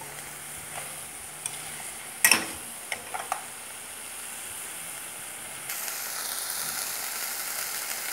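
Seared meatballs and chopped onion sizzling in a frying pan, with a metal spoon clinking and scraping against the pan several times in the first few seconds, the loudest knock a little over two seconds in. The sizzling gets louder about two-thirds of the way through.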